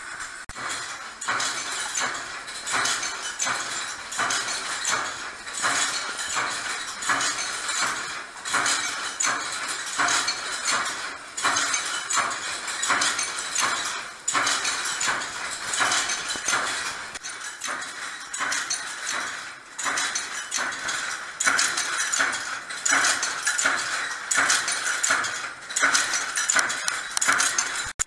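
Wire-fed screw-making machine running, with a fast, continuous metallic clatter of its punch and die working the steel wire.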